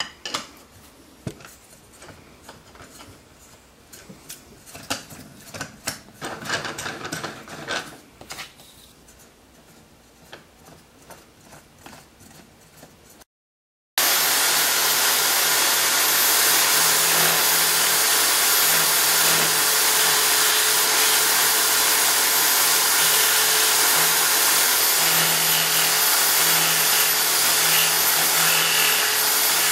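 Clicks and knocks of wooden lathe parts and a threaded rod being handled and fitted. Then, after a cut about 14 seconds in, the power drill that drives a homemade mini lathe runs steadily while a chisel cuts a spinning wooden blank.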